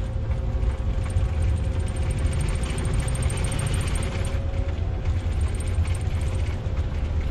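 Airbus A340 cockpit noise during the takeoff run: a steady, heavy low rumble from the engines at takeoff thrust and the airframe rolling fast, with a faint steady tone that fades out about halfway through.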